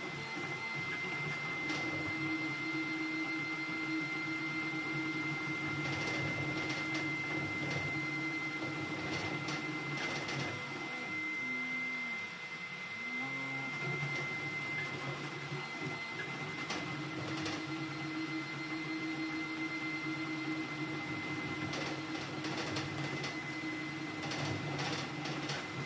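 Ender-3 V3 3D printer running a fast print: its stepper motors hum in steady tones that swoop briefly up and down in pitch as the moves change, a little after halfway and again near the end, over a steady high whine.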